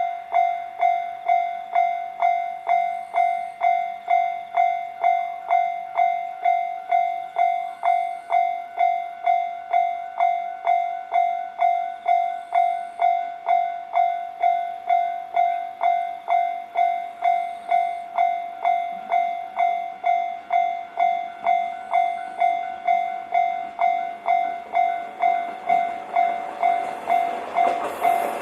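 Japanese railway level-crossing warning bell ringing in a steady rhythm of about two strikes a second, the signal that a train is approaching. Near the end the rising noise of the train reaching the crossing joins it.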